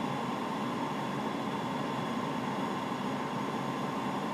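Steady airliner flight-deck background noise: an even hiss over a low hum, with a faint steady whine.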